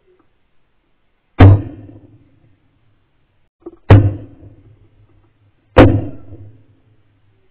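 Three shotgun shots about two seconds apart, each a sharp report that trails off over roughly a second.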